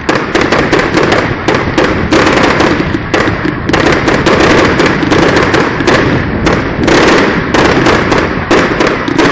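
A barrage of aerial fireworks: sharp bangs and cracks come several a second, irregularly, over a continuous crackling hiss.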